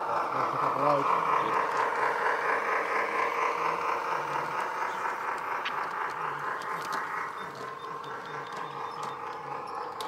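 Garden-scale model diesel locomotive pulling a boxcar along brass track: a steady whirr of the motor and gearing with wheels rolling on the rails. The sound eases off gradually toward the end.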